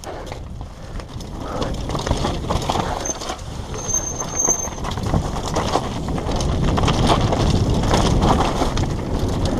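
Downhill mountain bike riding over a loose, rocky trail: tyres crunching over stones and the bike rattling with frequent clicks and knocks, louder from about halfway through.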